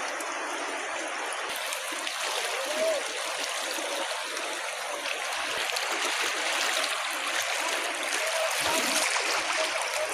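Flowing river water rushing steadily, an even hiss of current.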